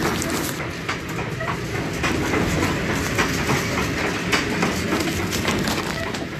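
Corn windmill's wooden gearing and millstones running while milling grain: a steady rumble with irregular clattering knocks.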